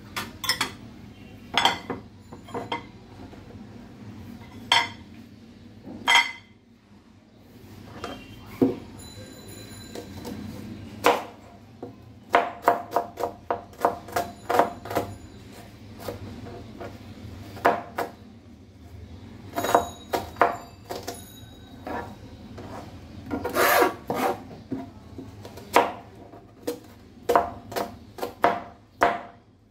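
Kitchen knife cutting small red onions on a plastic cutting board: irregular taps and scrapes of the blade against the board, with quicker runs of chopping strokes in places.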